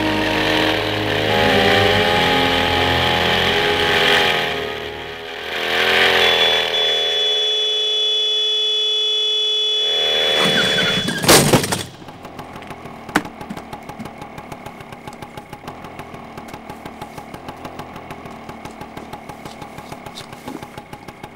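Motor scooter engine revving up and down, then holding a steady note with a thin high squeal over it. A loud bang about eleven seconds in, after which the engine runs quietly with a fast, even ticking.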